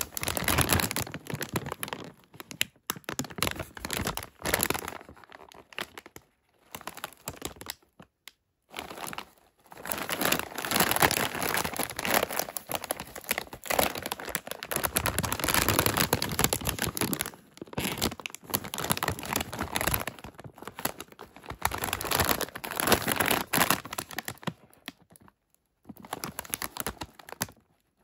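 Plastic potato chip bag crinkling and rustling as it is handled and turned over, in irregular bursts with short pauses.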